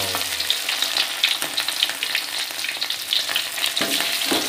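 Salted mackerel tuna frying in hot oil in a wok: a steady sizzle full of fast crackles and spits, with a spatula moving the fish about.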